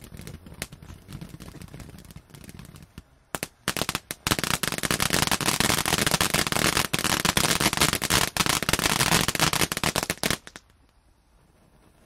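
Happy Deal Fireworks 'Season's greetings' linked fountain firework burning. Scattered crackles come first, then from about four seconds in a dense, loud crackling spray for about six seconds that stops suddenly. Only a faint hiss remains near the end.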